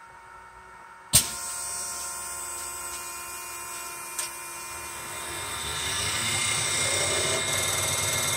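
Diesel injector test bench starting its test: a sharp click about a second in, then the bench's pump drive running steadily. From about five seconds in it grows louder with a rising whine as it spins up to build pressure for a back-pressure build test on a Bosch piezo injector.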